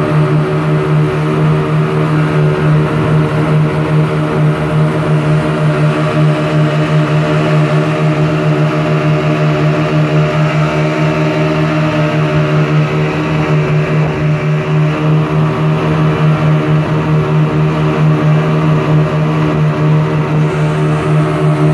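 Three 40 hp outboard motors pushing a longboat at speed, running steadily at a constant pitch.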